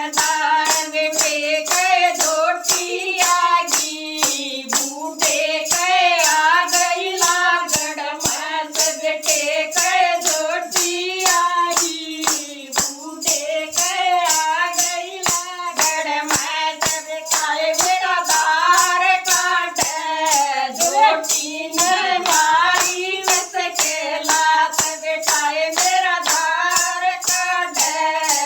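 Singing of a Haryanvi folk bhajan, a devotional song with a melody that bends from note to note, over a steady beat of sharp percussion strokes.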